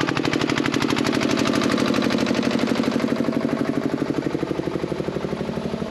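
An engine running with a rapid, very even pulsing beat, growing fainter toward the end.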